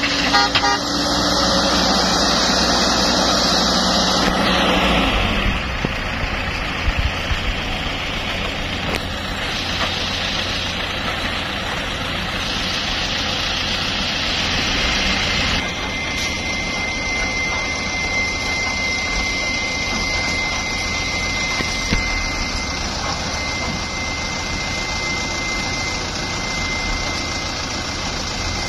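Diesel engines of a CAT E110B excavator and dump trucks running. The sound is louder with a steady hum for the first few seconds while the excavator works, then settles into a steadier, lower engine sound as a loaded truck drives off and another comes up. A thin steady high whine joins about halfway through.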